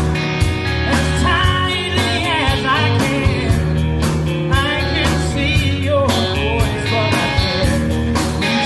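Live rock band playing: a singer's voice over electric guitar, bass and a drum kit.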